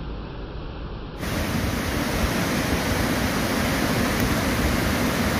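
Rainwater rushing down a small wooded valley as a temporary waterfall, a steady dense rush of water. About a second in it turns abruptly louder and fuller.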